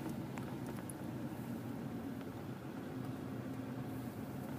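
Steady low engine hum and rumble inside the cab of a 2008 Dodge Ram 2500 with a Cummins turbo-diesel inline-six, the truck moving slowly through a parking lot.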